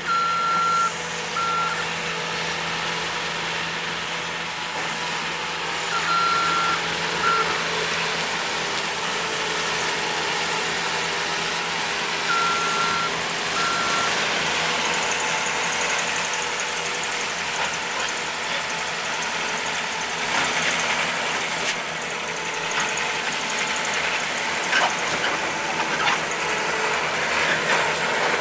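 Bobcat S250 skid-steer loader's diesel engine running steadily, its backup alarm beeping in short pairs three times, about every six seconds. Toward the end a rougher chewing noise is added as the front cutter attachment works through brush.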